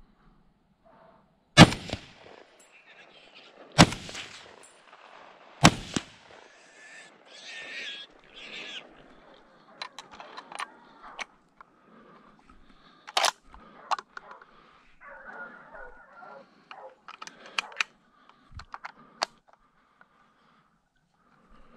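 Hunting rifle shots at wild boar: three loud reports about two seconds apart, then a fourth sharp report about ten seconds later, with clicks and rustling of handling between.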